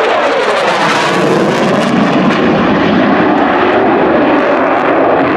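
Jet noise from a Saab JAS 39C Gripen's single Volvo RM12 turbofan as the fighter passes and pulls away. Its pitch falls at the start as it goes by, and then it settles into a loud, steady rush.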